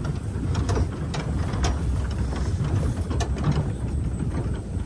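Ford 4x4 pickup driving slowly over a rutted dirt track, heard from inside the cab. A steady low engine and tyre rumble runs under frequent irregular clicks and rattles as the truck jolts over the ruts.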